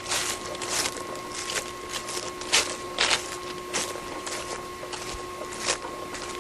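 Footsteps of a person walking outdoors, about two crunching steps a second.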